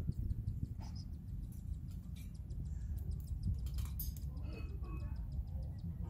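Newborn cockatiel chicks peeping faintly, a scatter of short high chirps, over a steady low rumble.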